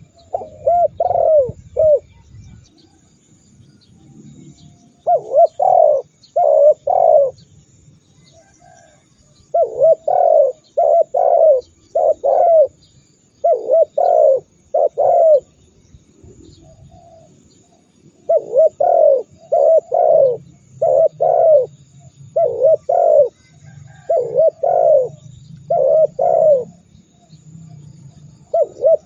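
Spotted dove (tekukur) cooing: short, low, arched coos in groups of two to four, with pauses of one to a few seconds between groups.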